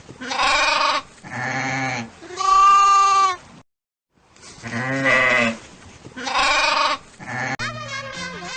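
Sheep bleating: three long wavering calls, a short pause, then three more. Music comes in near the end.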